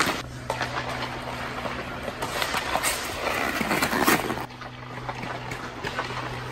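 Ice hockey skates scraping and carving on rink ice, with sharp clicks of sticks on pucks, over a steady low hum. The sound drops for a moment about four and a half seconds in.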